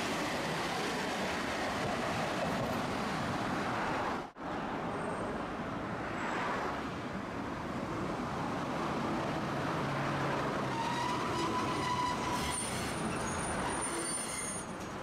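Tosaden streetcar running on street track and pulling into a stop, with road traffic around it. A thin, high squeal sets in about eleven seconds in as the tram slows and halts.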